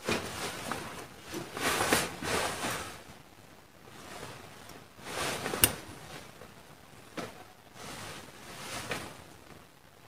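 Rustling and shuffling of a jacket as a person shifts and turns around, in several bursts, with a sharp click about five and a half seconds in.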